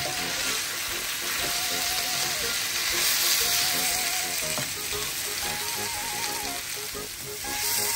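Frying sizzle and the scrape and rustle of a metal spoon stirring dry, uncooked paella rice through browned chicken, sausage and peppers in a wide pan, the rice toasting before any liquid goes in. A faint melody plays underneath.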